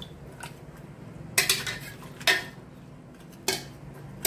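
A spoon stirring mutton, chana dal and water in a metal pressure cooker, knocking sharply against the pot three times.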